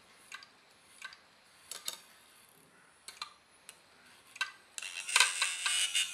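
Small metal parts and a tool being handled while a hard drive is reassembled: light metallic clicks come about once every 0.7 s. About five seconds in they give way to a louder run of metal clinking and rattling.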